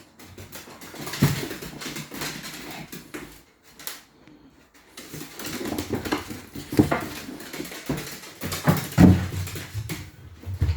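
Dogs moving about with irregular clattering and knocks, the loudest about two-thirds of the way through and again near the end.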